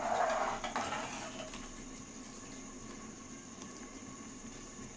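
A ladle stirring water, soaked rice, dal and chopped vegetables in an open aluminium pressure cooker, the water sloshing. The sloshing is loudest in the first second or so, then settles to a low steady background.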